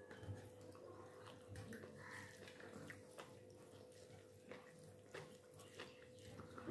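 Faint, scattered clicks and soft sticky sounds of fingers mixing rice on a ceramic plate, over a faint steady hum.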